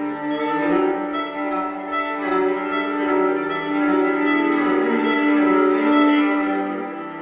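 Violin playing slow ambient music: a steady held low note sounds throughout under a run of repeated notes, about two a second.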